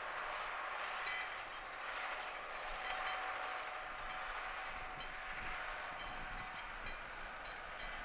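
Valtra T174 tractor's six-cylinder diesel engine working steadily under load as it pulls a mounted reversible plough through the soil, a few light clicks and clanks over the running noise.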